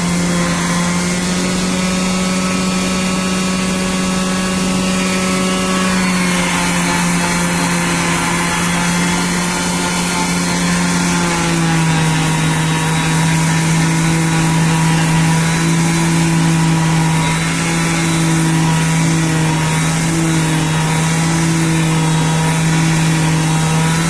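Electric sander running steadily on wood decking, a loud motor hum whose pitch drops slightly about a quarter of the way in and again about halfway through.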